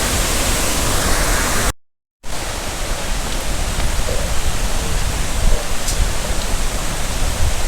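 Waterfall: a loud, steady rush of falling water, cut off completely for half a second about two seconds in before it carries on.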